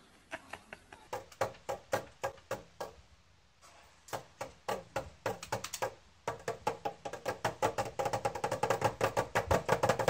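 Small toy drum with a metal rim, beaten with a pair of drumsticks. At first the beats come a few a second in uneven groups. From about six seconds in they come as a fast, steady run that grows louder.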